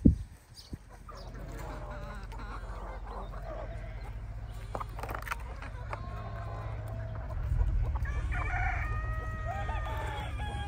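A flock of free-range chickens clucking, with roosters giving long crows in the second half. A single sharp knock comes at the very start, and a steady low rumble runs under the birds, growing louder about seven seconds in.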